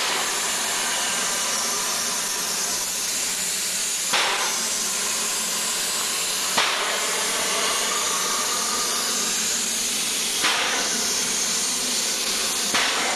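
Steady hiss of escaping steam from a narrow-gauge steam locomotive, broken by four brief sharp knocks spaced a few seconds apart.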